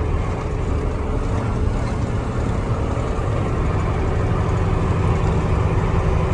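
KAMAZ truck's diesel engine running steadily under way, a constant low drone with road noise, heard from the cab.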